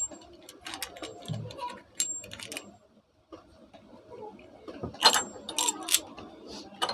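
Metal tools and ceiling fan parts clicking and clinking as they are handled, with a brief pause near the middle and a busier clatter about five seconds in.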